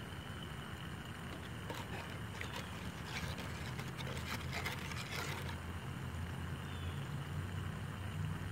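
Plastic spoon stirring and poking inside a stainless steel cup, a run of light clicks and scrapes from about two seconds in to just past halfway, over a steady low hum.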